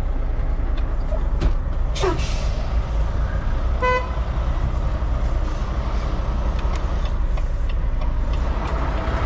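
Volvo semi-truck's diesel engine running low and steady, heard inside the cab. A short sharp noise comes about two seconds in, and a brief single beep about four seconds in.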